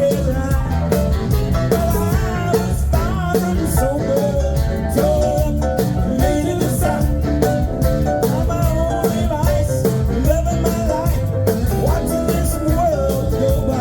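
Live blues band playing an instrumental passage, with a steady drum beat, bass, and a lead line that bends in pitch.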